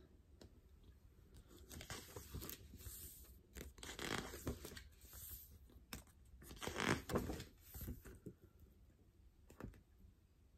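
Paper pages of a booklet being turned and handled, rustling in several short bursts with the loudest near the middle, then a soft click near the end.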